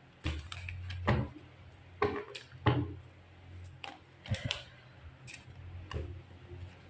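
A deck of tarot cards being shuffled and handled on a wooden table: a string of short card taps, snaps and riffles, roughly one every second.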